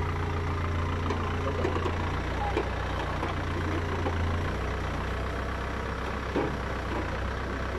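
Komatsu backhoe loader's diesel engine running steadily while the backhoe works a trench, its low note shifting about two seconds in and again about halfway through.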